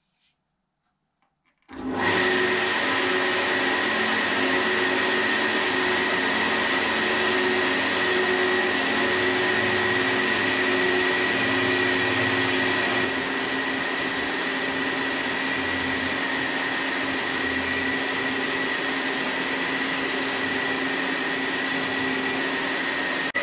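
Wood lathe running with a steady motor whine while a 10 mm carbide hollowing tool cuts inside the spinning chestnut vase. The sound starts abruptly a couple of seconds in and eases slightly about halfway.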